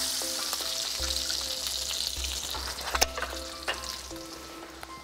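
Hot fat sizzling in a frying pan just after pan-fried gurnard fillets are lifted out, the sizzle fading toward the end. A single sharp knock about three seconds in.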